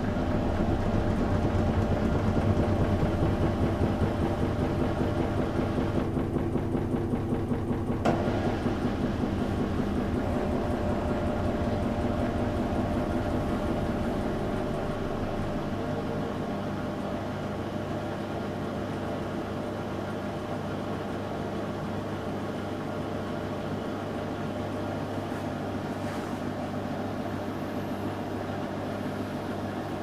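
Panasonic NA-168VG2 front-loading washing machine's drum and inverter motor running as it tries to get into the final spin, which it struggles to do. A loud rumble with fast pulsing for the first half eases about halfway through to a steadier, quieter hum.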